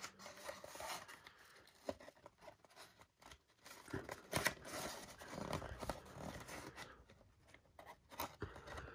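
Faint scraping and rustling of a cardboard sleeve sliding along a plastic graded-card slab as it is worked off, with a few light clicks; the loudest scrape comes about halfway through.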